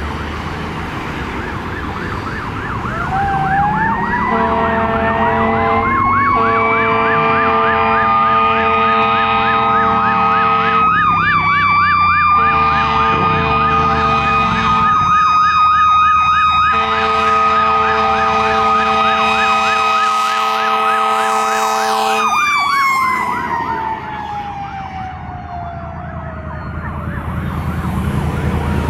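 Seagrave aerial fire truck responding with sirens: a mechanical siren winds up to a steady howl and winds slowly down near the end, under a fast-warbling electronic yelp. Four long air-horn blasts sound over them in the middle.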